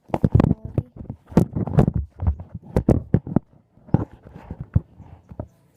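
Slime being squeezed and poked by hand, making a quick, irregular run of sharp sticky clicks and pops.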